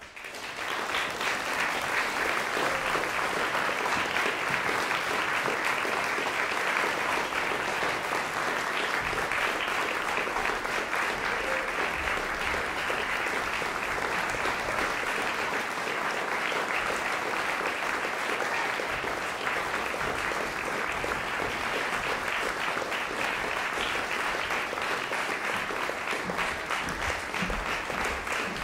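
Audience applauding, breaking out suddenly and then going on steadily as a dense, even clapping.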